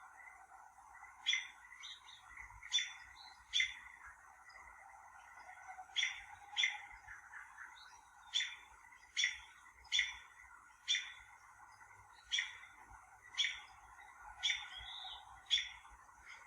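A bird repeating a short, sharp chirp about once a second, at slightly uneven spacing, over a faint steady background hiss.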